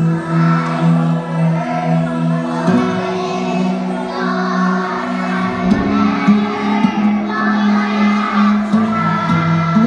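Background music with held low notes that change every second or two under a busier upper layer.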